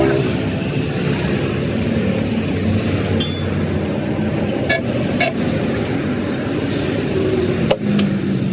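Steady vehicle engine and road-traffic noise, with a few sharp metallic knocks and a brief horn-like tone near the end.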